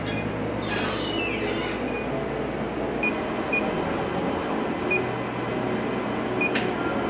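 CO2 laser engraver at work: a steady rushing hum from the running machine, with the gantry's stepper motors whining in falling glides for the first two seconds as the laser head moves into place. This is followed by a few brief high chirps as the head makes short moves, and a sharp click near the end.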